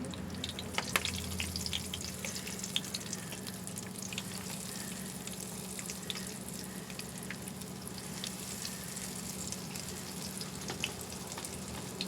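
Battered boneless pork chops sizzling in hot frying oil, with many scattered crackles and pops over a steady hiss.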